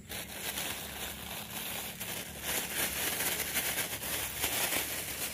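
Thin plastic bag crinkling and rustling as hands open it and put a fish inside, louder in the second half.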